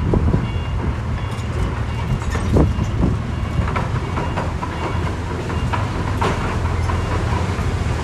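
Bulldozer's diesel engine running steadily under load, with its steel crawler tracks clanking and squeaking.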